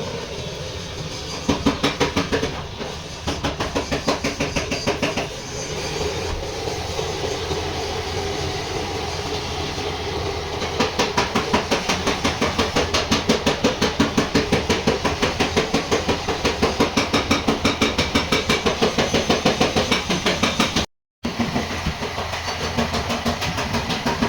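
Rapid, regular mechanical knocking or pulsing at about seven beats a second, with a brief cut-out near the end.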